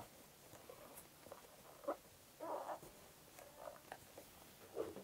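Crochet hook drawing thick 10 mm yarn through stitches, heard as faint, irregular short scrapes of cord rubbing on cord.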